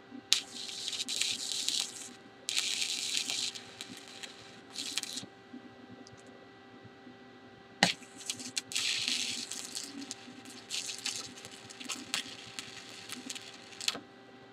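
Stick (SMAW) welding arc of a 3/32-inch 7018 electrode crackling in several short bursts, each a tack weld joining the test coupons to the backing strip, with a sharp crack about eight seconds in.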